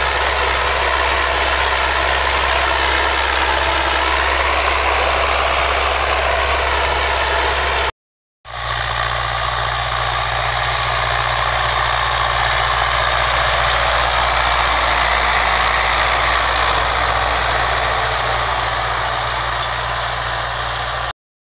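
Ursus C-360 tractor's four-cylinder diesel engine running steadily under load while pulling a plough through the soil. The sound drops out for a moment about eight seconds in, then carries on steadily.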